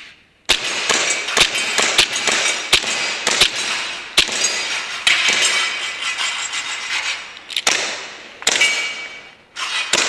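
Gas blowback airsoft pistols firing a rapid string of shots, about two or three a second, with metallic clinks and ringing between the shots. The string starts about half a second in, and a few separate shots come near the end.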